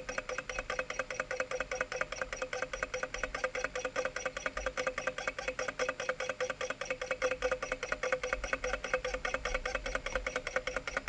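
Low-temperature Stirling engine running steadily, its moving parts ticking in a fast, even rhythm of several clicks a second.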